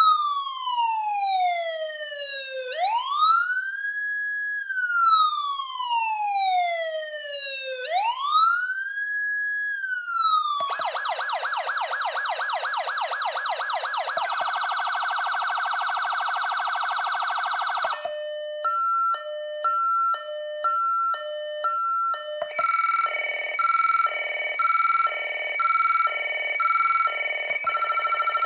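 Federal Signal SmartSiren Platinum SSP3000B electronic siren sounding its Unitrol tones in turn. It starts with a slow wail rising and falling about every five seconds, and about ten seconds in it switches to a rapid yelp. Next comes the faster Futura warble, then a two-tone hi-lo, then near the end the sharper Ultra Hi-Lo.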